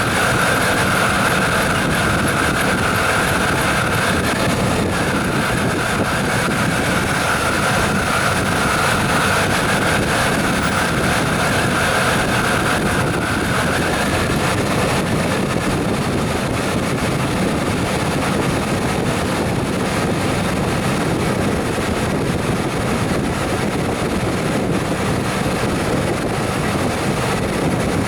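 1994 Chevy Silverado's 350 V8 throttle-body-injected engine running steadily, before it has warmed up. Wind rustles the microphone, and a high steady tone in the mix fades out about halfway through.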